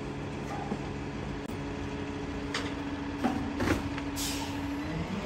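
Rear-loading garbage truck idling with a steady hum, with a few knocks and clatters in the middle and a short hiss about four seconds in.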